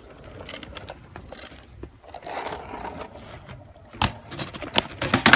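BMX bike ridden on pavement with rapid mechanical ticking. A sharp clattering impact about four seconds in, followed by more clatter, fits a trick attempt ending in a bail.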